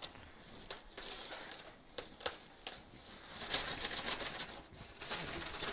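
Crinkling and rustling of a foil-faced foam insulation sheet as it is handled and lifted off a beehive's canvas cover, with a few sharp clicks.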